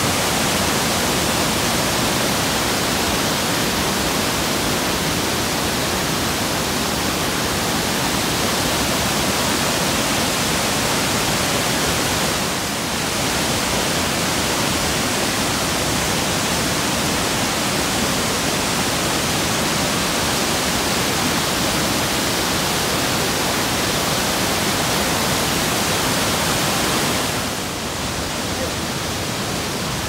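Cascading waterfall: white water rushing over broad rock slabs in a steady, loud, unbroken rush, dipping briefly about a third of the way in and a little quieter near the end.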